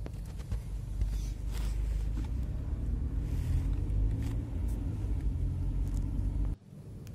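Low, steady rumble of a car, heard from inside the cabin, with a few light knocks and rustles over it. The rumble cuts off abruptly near the end.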